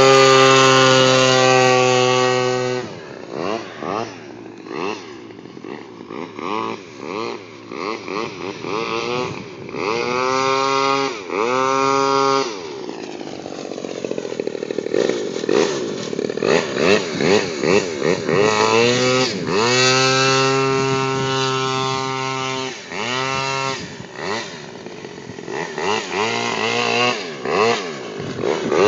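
Radio-controlled airboat's small engine and air propeller, held at high revs for about three seconds, then throttled back and blipped up and down over and over, the pitch climbing and falling with each burst.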